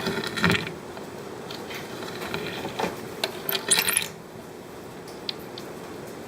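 Scattered small metallic clinks and clatters, like tools or hardware being handled, with a quick cluster of ringing clinks about three and a half seconds in.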